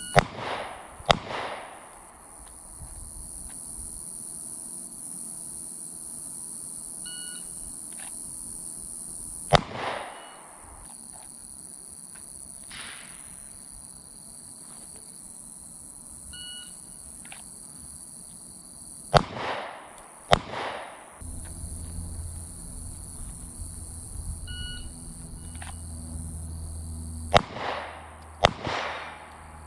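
Glock 27 subcompact .40 S&W pistol fired slowly: seven shots, several in pairs about a second apart, each followed by a short echo.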